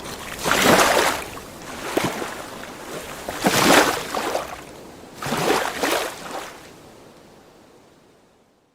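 Small lake waves washing and lapping against the shore in a handful of surging splashes, then fading away near the end.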